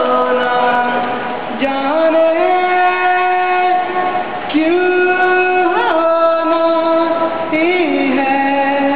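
A solo voice singing a Hindi film song, holding long notes with small ornamental pitch turns between phrases.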